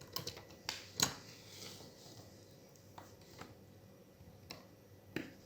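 Small sharp clicks and taps of a smartphone's logic board being handled and pressed into the frame to seat on the button flex, the loudest click about a second in.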